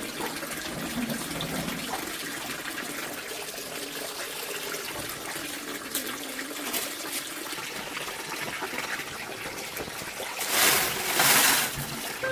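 Water trickling steadily, with a louder rush lasting about a second near the end.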